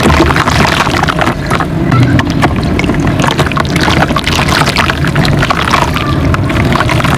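Close-miked wet red dirt mud chunks being crumbled and mixed in water, a dense, continuous run of small crackles over a low rumble.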